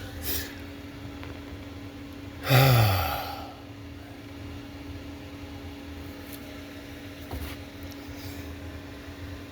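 A man's short sigh, falling in pitch, about two and a half seconds in, over a steady hum.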